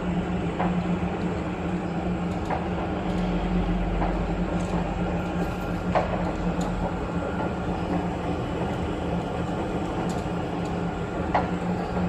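Metal lathe running with a steady low hum, with sharp metallic clicks now and then as it turns a part for an excavator rock hammer.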